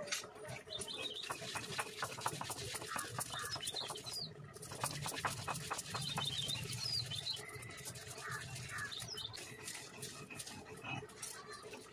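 Spices being crushed and ground to a paste on a stone grinding slab (sil-batta): rapid knocks and scrapes of stone on stone, then a low gritty rubbing. Birds chirp now and then in the background.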